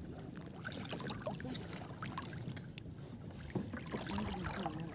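Shallow seawater sloshing and lapping, with small irregular splashes, as people wade through it. A faint voice comes in during the last second or so.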